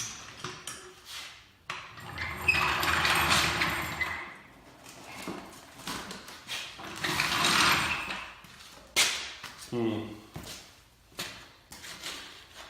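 A lawn mower being handled and moved off its stands: two long scraping, rattling noises of about two seconds each, then several sharp knocks and clunks.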